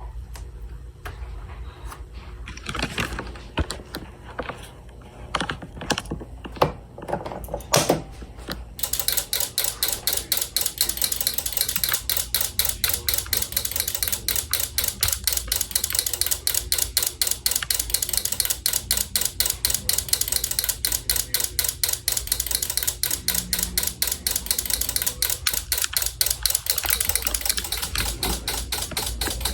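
A few scattered knocks and clicks. Then, about nine seconds in, a rapid, even clicking starts, about five or six clicks a second, from the fire alarm test setup.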